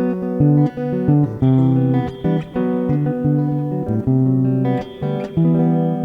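Guitar playing a melody of single plucked notes, a few per second, each ringing on. It is recorded through the Comica LinkFlex AD5 audio interface as a demonstration of its built-in effects.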